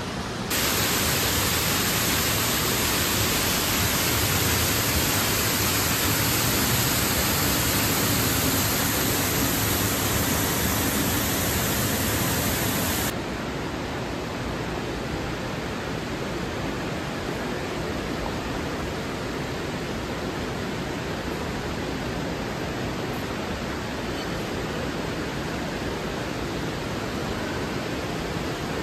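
Steady rushing of water from indoor waterfalls and fountains, an even hiss with no distinct events. It is louder and brighter for the first dozen seconds, then drops suddenly to a lower steady level about 13 seconds in.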